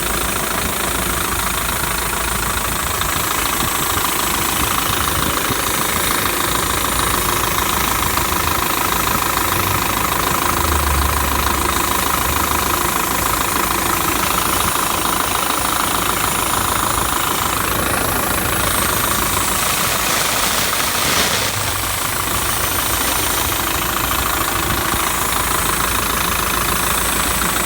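Steady, loud hissing of unknown origin, a continuous rushing noise with a slightly brighter, whistling edge, keeping on without a break.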